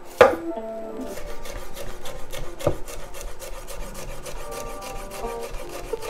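Chef's knife slicing a red bell pepper into thin strips on a bamboo cutting board: a sharp chop a quarter second in, then a fast, even run of short blade strokes knocking on the wood.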